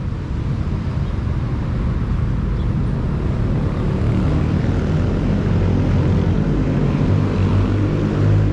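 A steady low engine rumble that grows louder and fuller in the last few seconds.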